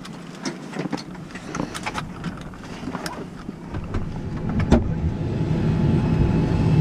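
Helicopter engine starting up, heard inside the cabin: a steady low hum that keeps getting louder through the second half. Scattered sharp clicks and knocks come in the first few seconds.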